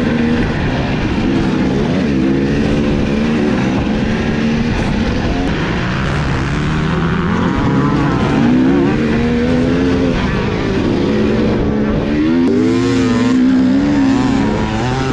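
Dirt bike engine heard from on board the bike while it is ridden around a motocross track, revving up and down with the throttle so its pitch keeps rising and falling.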